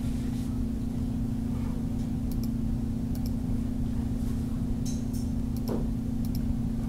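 Steady low electrical hum from the recording setup, with a few faint mouse clicks as menu settings are changed.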